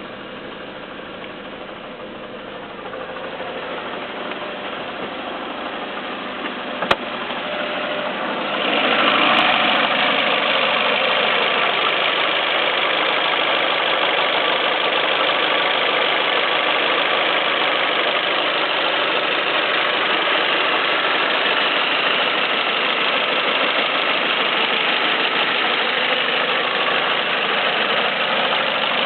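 Peugeot 307 1.6 16v petrol four-cylinder engine idling with the clacking noise ('claquement') that the owner finds strange. There is a sharp click about seven seconds in, and the sound gets louder from about eight seconds in.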